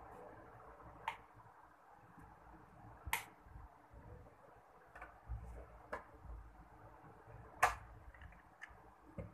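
Sharp clicks and light knocks from an Inalsa electric sandwich maker being handled, spread out over several seconds. The loudest comes about three-quarters of the way through, as its plastic lid is shut and latched over the sandwiches.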